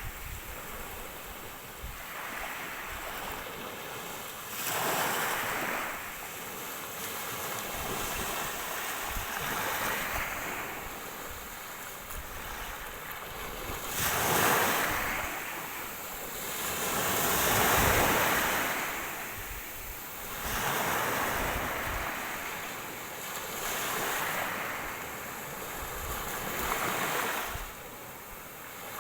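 Ocean waves breaking and washing onto shore, swelling and falling back every few seconds, with the biggest surges about halfway through.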